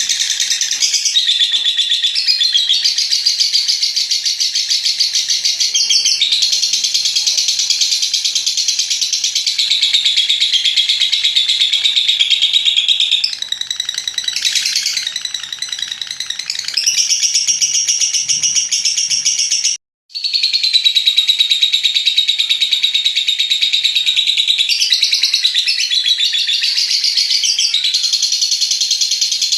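Lovebird giving its long 'ngekek' song: a loud, rapid, high chattering trill sustained almost without pause, broken off briefly once about two-thirds of the way through.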